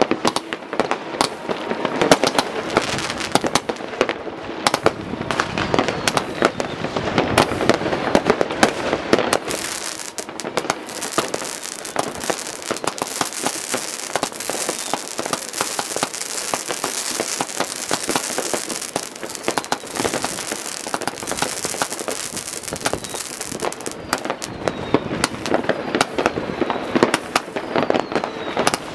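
New Year's Eve fireworks: a continuous barrage of firecrackers and rocket bursts, many overlapping bangs and crackles of varying loudness with no let-up.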